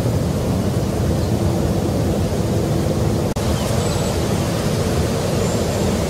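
Steady low rumbling outdoor ambience noise that cuts out for an instant just past halfway; a few faint high chirps come in over it in the second half.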